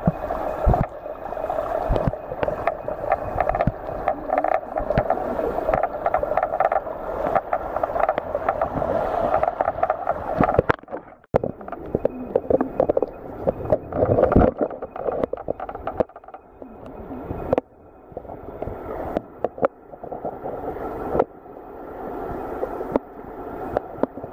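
Stream water gurgling, heard muffled through a camera held underwater, with frequent knocks and scrapes from the camera being moved against the water and rocks. The sound drops away briefly about eleven seconds in.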